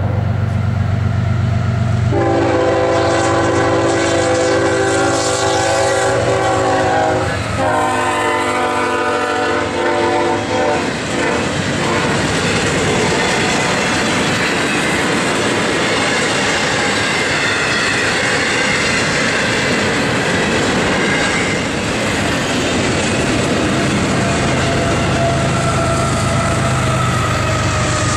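Horn of a CSX GE ES44AH freight locomotive blowing a long blast at a grade crossing, its chord dropping sharply in pitch about seven seconds in as the locomotive passes, ending about twelve seconds in. After that the stack train's cars roll by with wheels clacking over the rail joints and a steady rumble, and a locomotive engine grows louder near the end.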